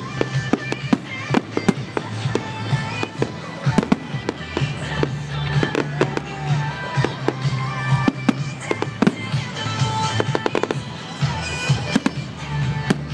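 Fireworks display: a steady run of sharp cracks and pops from bursting shells and crackling comets, with a dense flurry of cracks about ten seconds in. Music plays underneath.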